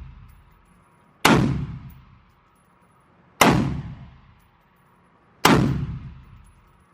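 Three single gunshots about two seconds apart, each sharp crack trailing off in about a second of echo.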